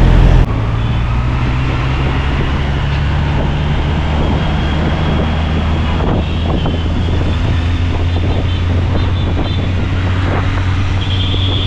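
Honda CBR650R's inline-four engine running steadily while riding, with wind noise on the microphone.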